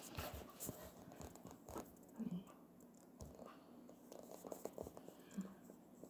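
Faint, scattered clicks and light rubbing as a metal sewing-machine bobbin case is handled close up.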